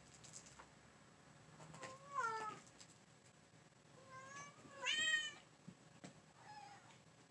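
Domestic cat meowing three times: a short call about two seconds in, then a longer, louder meow around five seconds that rises and then falls in pitch, and a faint short one near the end.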